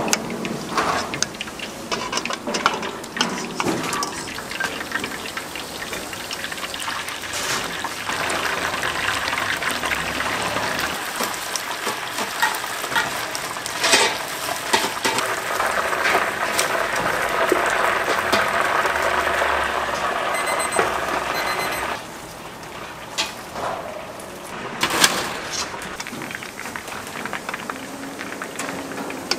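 Battered boneless chicken deep-frying in a cast-iron cauldron (gamasot) of hot oil: a loud, steady sizzle and crackle with scattered sharp clicks and taps. About two-thirds of the way through, the sizzle drops suddenly to a quieter level.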